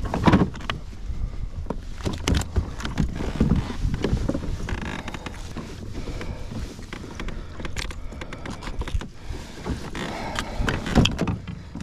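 Scattered knocks, clicks and creaks of a just-landed largemouth bass being handled and unhooked on a plastic fishing kayak, over a low rumble.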